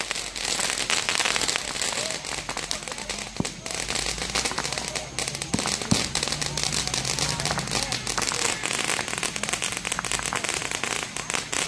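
Fireworks going off in a dense, unbroken run of rapid crackles and pops.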